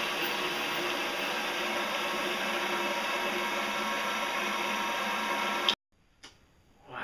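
Small benchtop metal lathe running at a steady speed, a steady hum and whine of several fixed pitches over a hiss, while it turns a plastic bearing blank. The sound cuts off abruptly about five and a half seconds in, leaving near silence.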